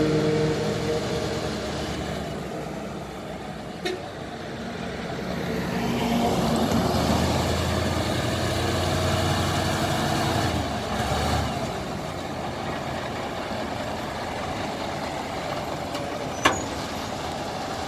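The diesel engine of a Grove GMK4070-1 all-terrain mobile crane running as the crane drives past, its low rumble swelling to its deepest and loudest about halfway through as it passes close, then holding steady. A sharp click comes near the end.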